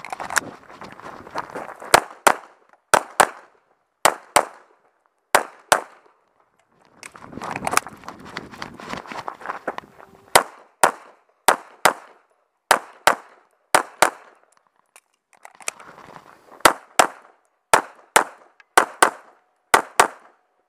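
Semi-automatic pistol fired in rapid pairs (double taps), about two dozen shots in all, each pair a fraction of a second apart. Between strings of shots comes a rustle of steps on gravel as the shooter moves between positions.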